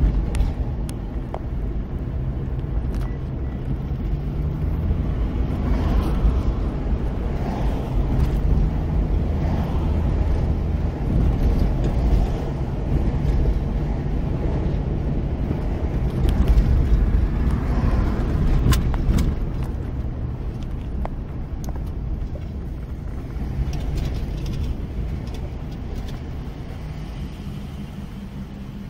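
Car cabin road noise: a steady low rumble of tyres and engine while driving, easing off near the end as the car slows toward a red light.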